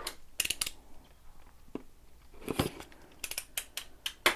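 Packaging of a boxed lipstick-making kit being opened by hand: short clusters of sharp crinkling, tearing and clicking.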